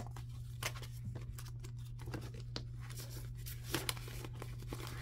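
Paper banknotes rustling and crinkling as a stack of dollar bills is handled, with scattered light taps and a slightly louder pair of taps a little before the end. A low steady hum sits underneath.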